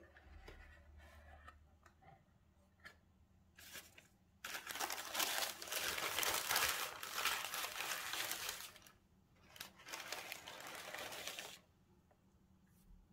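Tissue paper rustling and crinkling as it is folded back from around a sneaker in a cardboard shoebox, in two long spells from about four seconds in, after a few seconds of soft handling of the box lid.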